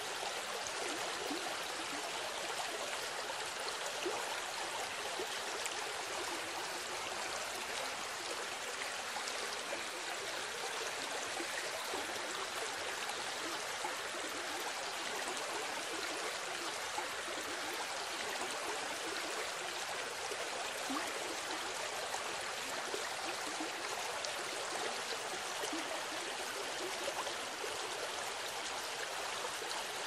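Flowing stream water: a steady, even rush that never breaks or changes.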